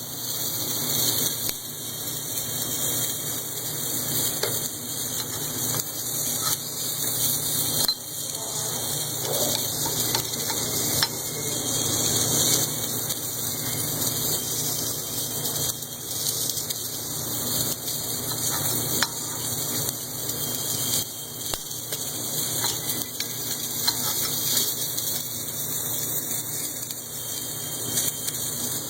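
Steady sizzling hiss from an automated crankshaft journal repair process at work, with a few sharp clicks.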